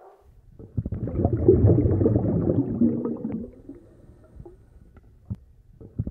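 Underwater-style bubbling and gurgling, a rush of bubbles from about half a second in lasting some three seconds, then quiet, with a second rush starting near the end.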